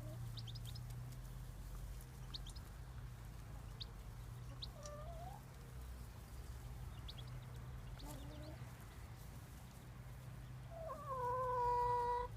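Chickens calling in a field: a few short gliding calls, then one loud drawn-out call near the end that falls in pitch and holds. Short high chirps come now and then over a steady low hum.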